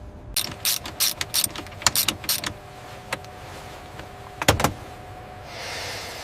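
A quick run of sharp mechanical clicks and clacks over a faint steady hum, a louder double clack about four and a half seconds in, then a soft hiss of air swelling near the end.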